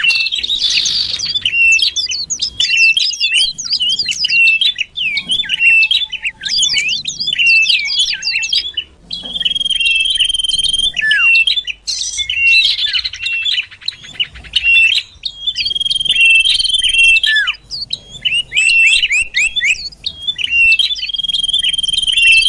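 Common iora (cipoh) calling in the 'sirtu' style used as a lure call. Fast runs of short, sharp, downslurred chirps alternate with long, steady high whistles, a few of which end in a falling slur.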